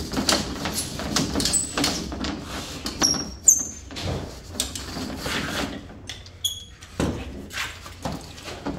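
Cement sheets leaning against a wall being handled and shifted: irregular knocks and scrapes with a few short high squeaks, the loudest squeaks about three and a half seconds in, along with footsteps and a tool belt rattling.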